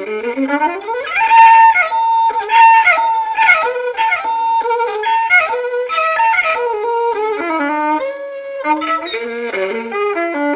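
Violin prepared with Blu Tack stuck on its strings, bowed in a free improvisation: two notes slide upward together about a second in to a long held high note, followed by a series of shifting double stops.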